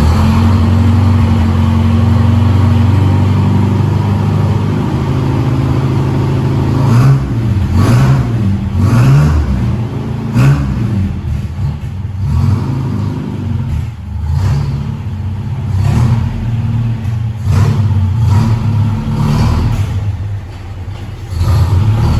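A car engine running steadily at first, then revved up and down several times.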